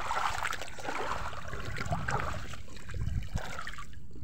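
Shallow seawater sloshing and trickling with small irregular splashes as a person moves through it, over a low steady rumble.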